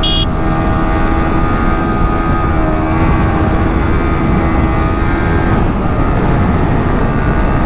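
Single-cylinder sport motorcycle engine running hard at about 100 km/h, heard from the rider's seat under heavy wind rush. The engine note holds steady, then shifts slightly a little past halfway.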